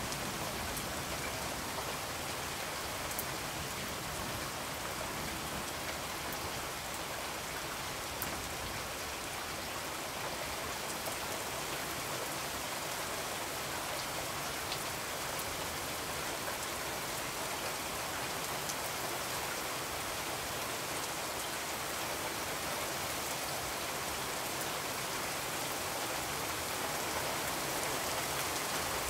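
Steady rain, an even hiss that holds the same level throughout.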